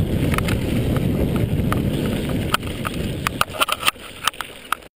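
Mountain bike riding down a gravel forest track: wind rushing over the microphone and tyre rumble, with scattered sharp clicks and rattles from the bike over the stones. The rush eases after about two and a half seconds, leaving the rattles more distinct, and everything cuts off just before the end.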